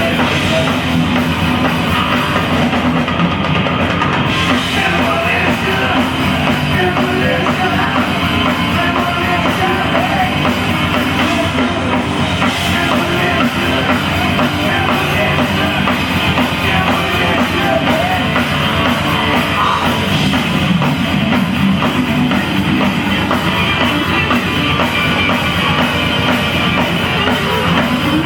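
Hard rock band playing live: distorted electric guitars, bass and pounding drum kit, with some singing, in a loud, compressed audience recording.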